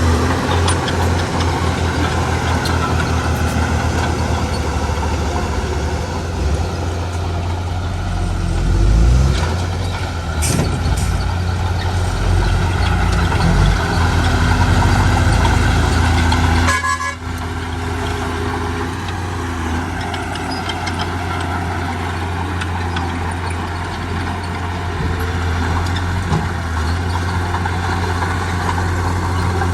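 Heavy diesel engine of earthmoving machinery running steadily with a deep, continuous hum, broken briefly a little past halfway.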